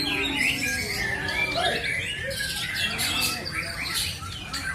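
White-rumped shama (murai) singing: a fast, continuous run of varied chirps and short gliding whistles.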